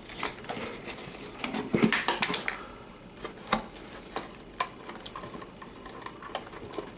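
Handling noise: scattered clicks, knocks and rustles of a cardboard box insert and a plastic RC buggy as hands work the buggy loose from its packaging.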